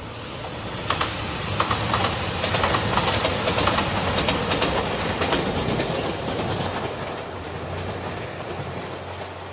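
JR Shikoku 2700 series diesel express train passing close by, its wheels clicking in a steady rhythm over the rail joints. Loudest from about a second in, then fading as it draws away.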